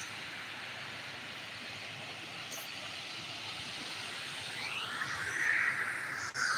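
Small waves breaking and washing up a sandy beach, a steady hiss of surf, with one wave washing in louder near the end.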